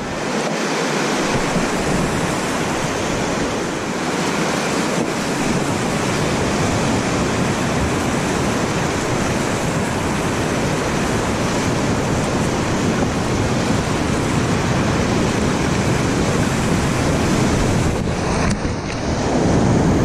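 Whitewater rapids rushing, heard close up from a canoe in the current: a steady, dense wash of churning water that grows louder near the end.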